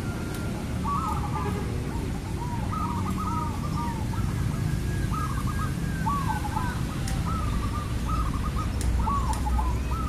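Zebra dove (perkutut) cooing: runs of quick, rolling coo notes repeated in several phrases with short gaps between.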